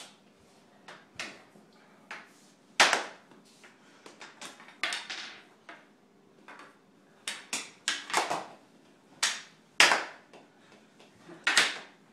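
Floor hockey play on a tile floor: irregular sharp clacks and knocks as the sticks strike the ball, the floor and each other, a few much louder hits scattered through.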